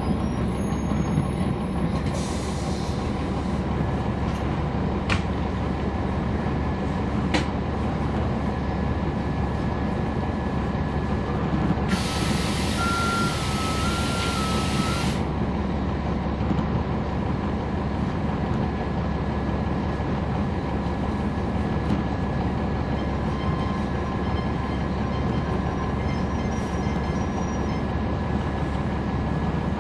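Inside a 2011 NABI 40-SFW transit bus, heard from the back seat: its Cummins ISL9 inline-six diesel runs steadily under way, with a thin steady whistle over the rumble. About twelve seconds in comes a loud hiss of air lasting about three seconds, with a two-tone beep over it.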